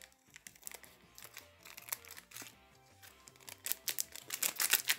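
Small scissors snipping through foil sticker packets, with the foil wrappers crinkling, in a run of sharp crackles that gets denser and louder in the last second and a half. Soft background music runs underneath.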